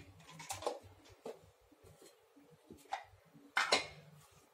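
A few light clicks and knocks of spice jars and kitchen containers being handled, the loudest about three and a half seconds in.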